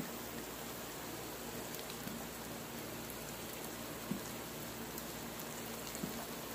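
Omelette batter of egg and diced potato frying gently in oil in a nonstick pan over a low flame: a soft, steady sizzle, with a couple of faint ticks in the second half.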